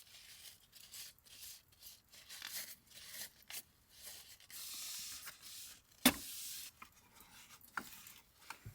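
Irregular rustling and scraping of things being handled, with one sharp knock about six seconds in and a few lighter clicks near the end.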